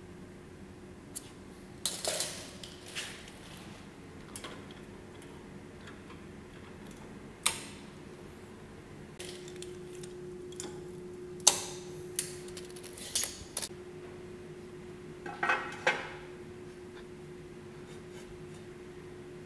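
Steel angle pieces and steel welding squares clinking and knocking against a steel table frame as they are positioned, in scattered sharp metallic clanks, the loudest about 7, 11 and 15 seconds in. A faint steady hum runs underneath, a little stronger from about nine seconds in.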